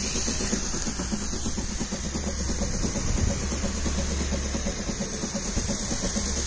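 Battery knapsack sprayer's electric pump running steadily with a rapid chatter, along with the steady hiss of water forced out as a fine mist through a brass spray nozzle.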